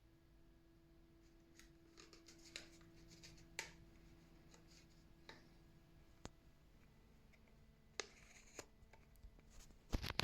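Faint scattered clicks and rustling handling noises over a low steady hum, with a cluster of sharper clicks near the end.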